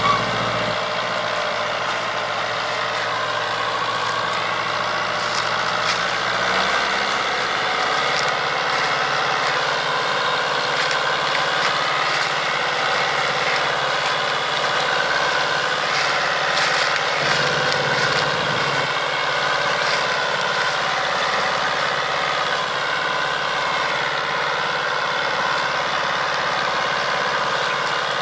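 Old Fiat 640 tractor's four-cylinder diesel engine running steadily under load while hauling a heavily loaded sugarcane trolley, its pitch wavering slightly.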